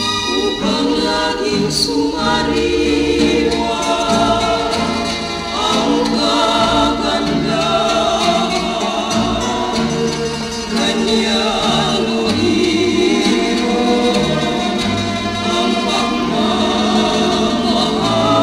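A Tagalog kundiman sung in Tagalog by voices in close harmony over instrumental accompaniment, played from a vinyl LP on a turntable.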